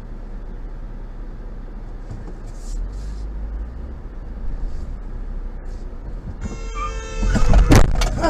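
Steady low road and engine rumble inside a car's cabin; about six and a half seconds in a car horn sounds for about a second, followed by a few loud sharp sounds just before the end.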